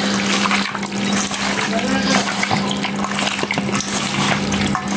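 A hand squishing and kneading raw mutton pieces with onions, spices and yogurt in a steel bowl, a wet, crackly squelching that keeps going. A steady low hum runs underneath.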